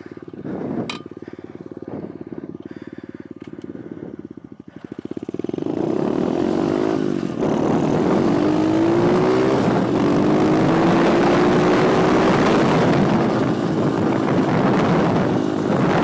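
Petrol pit bike engine idling with a steady pulse, then opened up and ridden off about five seconds in, getting much louder. The engine note rises and later sinks under a rushing noise.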